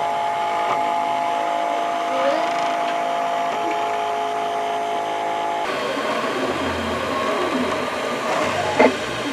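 Ultimaker 2 3D printer at work: its stepper motors whine in several steady tones that shift in pitch as the print head moves, over a steady fan whir. About six seconds in the tones turn busier and glide up and down, and there is one sharp click near the end.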